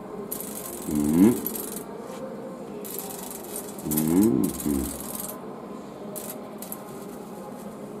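High-voltage discharge from a kacher coil hissing in irregular bursts as a screwdriver tip is brought near its terminal. Two short, rising voice-like sounds, about a second in and about four seconds in, are the loudest moments.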